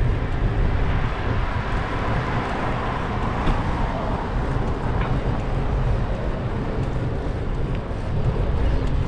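Steady wind buffeting and road noise from riding along a street, a heavy low rumble throughout. About three seconds in, a motor scooter passes, its engine note falling slightly as it goes by.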